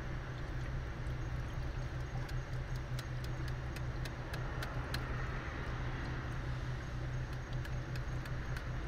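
Engine idling steadily with a low hum, under a run of light clicks and taps from handling metal parts, most of them in the first half.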